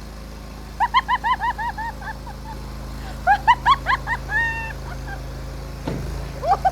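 Nuoman mini skid steer's engine running steadily, under three runs of quick, high-pitched yelps of about five calls a second.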